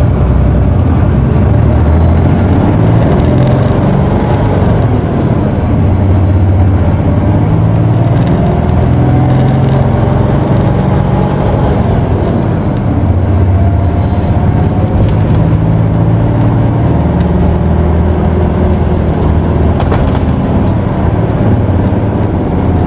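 Isuzu Erga city bus (PKG-KV234L2) diesel engine pulling hard under full acceleration, heard from inside the cabin. The engine note climbs, drops at a gear change about twelve seconds in, climbs again, and changes again near the end.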